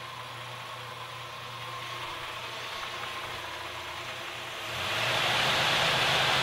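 Car engine idling steadily, growing louder about three-quarters of the way through.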